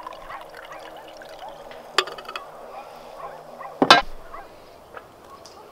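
Dark berry wine poured from a ceramic jug into a glass tumbler, then a sharp click about two seconds in and a louder knock just before four seconds, as the jug is set down on the wooden table.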